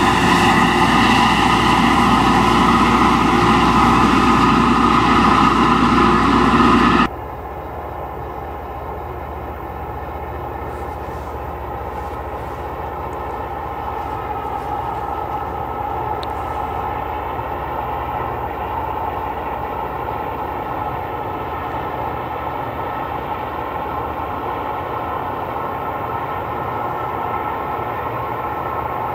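Loram rail grinder train running close by: a loud, steady machinery din with several steady tones. It cuts off suddenly about seven seconds in. A quieter steady drone of the train coming from far off follows and slowly grows louder.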